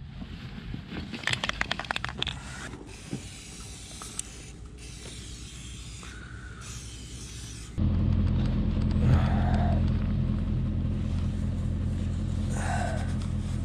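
Aerosol can of chain wax rattled, then sprayed in short hisses onto a motorcycle drive chain. About eight seconds in, this gives way to the steady low hum of the Royal Enfield Himalayan's 411 cc single-cylinder engine idling.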